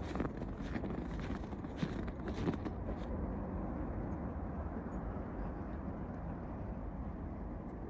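Footsteps crunching in fresh snow for about the first three seconds, then stopping, over a steady low rumble.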